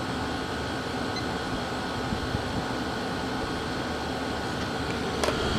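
Small window air conditioner running steadily, its compressor and blower fan both on, giving an even whoosh with a faint hum. A light click sounds near the end.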